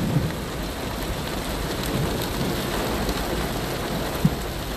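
Heavy rain pouring onto a flooded street, a steady hiss and rush of water, with one short knock near the end.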